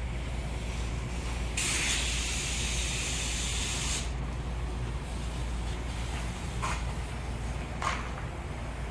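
A steady spray hiss lasting about two and a half seconds, then two brief short scuffs near the end, over a constant low rumble.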